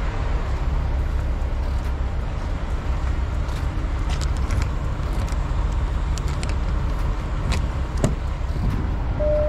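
A truck's diesel engine running steadily, a low rumble, with a few faint clicks over it.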